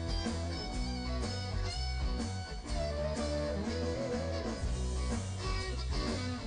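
Background music led by guitar, with a steady bass beat and a bending guitar melody.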